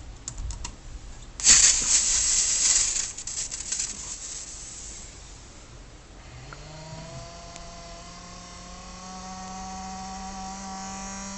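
Sony VAIO Z laptop: a few key clicks, then a sudden loud hiss of noise about a second and a half in that lasts about a second and a half, with clicks trailing off. From about six seconds the cooling fan spins up with a rising whine that then holds steady and grows a little louder. The owner says the fan's loudness is a fault the laptop always had.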